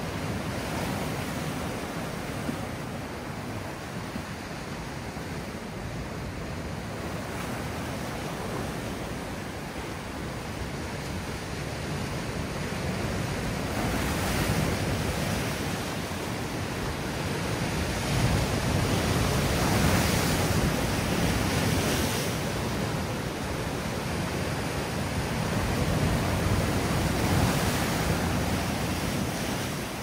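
Sea waves breaking and washing on the shore, a continuous surf noise that swells louder in slow surges several times, with the biggest waves around the middle and near the end.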